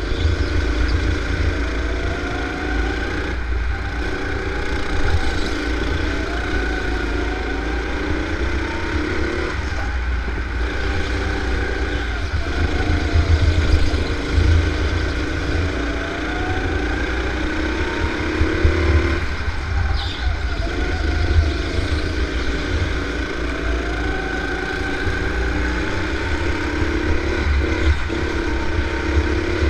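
Go-kart engine running at speed, its pitch rising as it accelerates and dropping off every several seconds as it slows, over a heavy low rumble.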